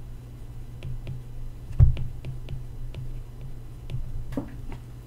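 Stylus tapping and clicking on a tablet's glass screen during handwriting: irregular sharp ticks, with one louder knock a little under two seconds in, over a steady low hum.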